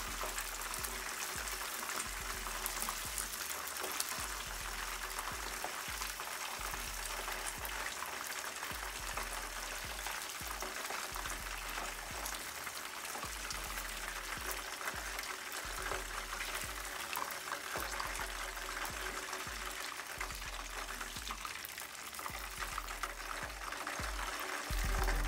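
Spring rolls deep-frying in a pan of hot oil: a steady, dense crackling and bubbling.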